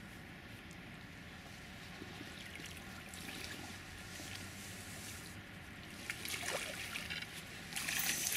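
A hooked pike splashing at the water's surface as it is drawn into a landing net, the splashing growing louder and strongest near the end as the fish thrashes in the net.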